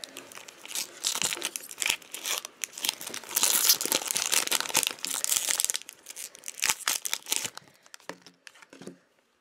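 Foil wrapper of a Pokémon trading card booster pack being torn open and crinkled by hand: a dense, crackling rustle, loudest in the middle, thinning out near the end.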